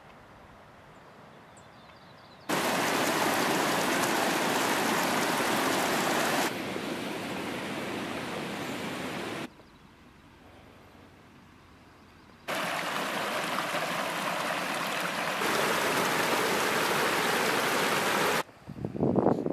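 A small mountain stream rushing and splashing as it cascades over rocks. It comes in two long, steady stretches with a quieter pause between them.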